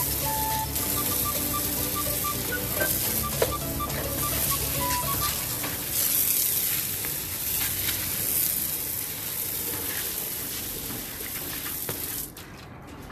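Water spraying from a garden hose nozzle onto a tiled floor, a steady hiss that cuts off suddenly near the end.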